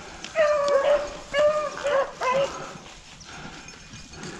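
Rabbit dogs baying on a rabbit's track: four or five drawn-out, pitched bays in the first two and a half seconds, then quieter.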